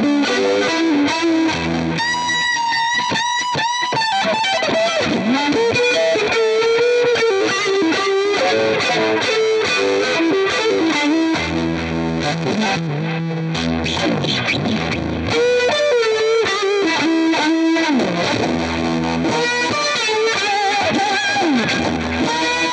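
Distorted electric guitar improvisation on a Fender Telecaster through a Lovepedal Pickle Vibe, a uni-vibe style pedal: sustained notes bent up and down with wavering vibrato, broken by heavier low passages.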